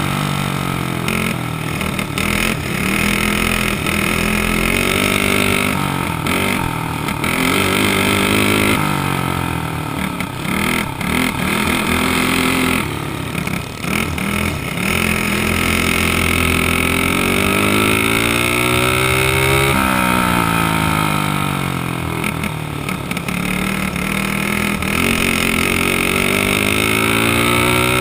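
Dirt kart engine heard from on board the kart, running hard and revving up and down over and over as the kart accelerates and then backs off through the turns.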